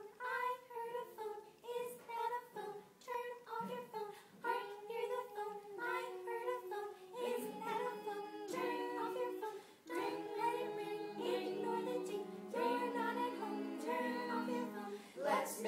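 A small mixed choir of teenagers singing a cappella: short separated notes at first, then longer held chords with lower voices joining in about halfway through.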